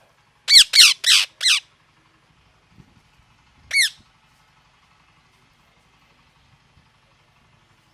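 Parrot giving a quick run of four loud, harsh squawks, then a single squawk again a couple of seconds later.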